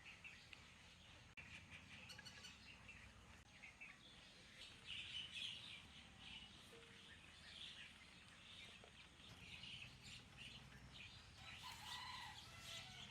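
Faint birds chirping and twittering in the background, with a few short whistled notes near the end, over a low steady hum.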